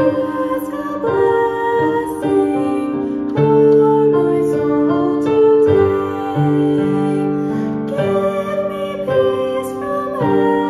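A solo female voice singing a hymn, with piano accompaniment playing sustained chords under it.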